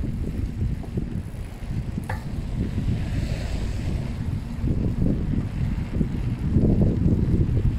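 Wind buffeting the microphone of a camera on a moving bicycle: a low, gusty rumble that swells near the end. A single brief click comes about two seconds in.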